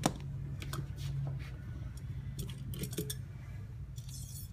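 Scattered light clicks and clinks of metal hand tools and brass fittings being handled on a workbench, over a low steady hum, with a brief hiss about four seconds in.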